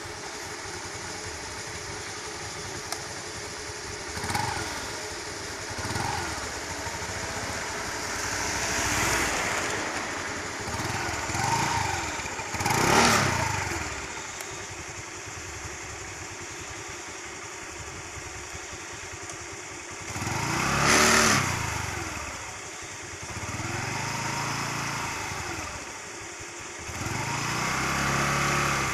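Small motor-scooter engines running, with the engine sound swelling and fading several times.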